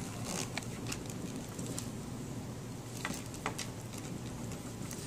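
Hand wire strippers gripping and pulling the insulation off the end of a thick wire: a few scattered small clicks and scrapes.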